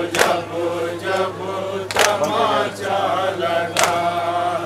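A group of men chanting a Shia nauha (mourning lament) in unison. A sharp slap of matam (chest-beating) lands in time with it about every two seconds, three strikes in all.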